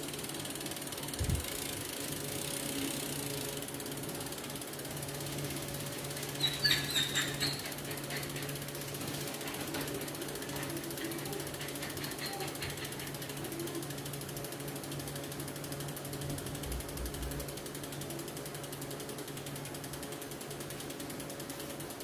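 Shimano RS100 rear wheel's freehub clicking as the wheel spins freely, a fast, even run of ratcheting pawl clicks that gets louder for a moment about seven seconds in. A single thump comes just over a second in.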